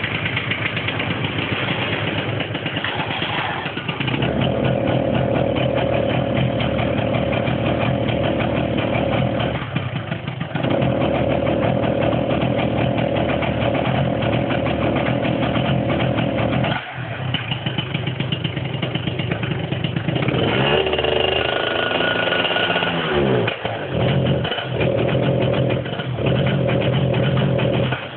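An engine running steadily, dropping out briefly about ten seconds in and again near seventeen seconds, then its pitch swinging down and up several times in the last third.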